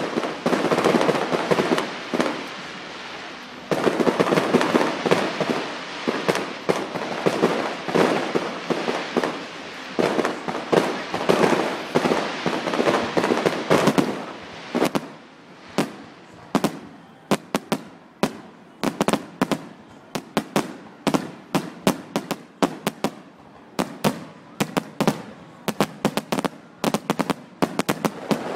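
Aerial fireworks going off: a dense run of bangs and crackling, which about halfway through gives way to a rapid string of sharp cracks, several a second.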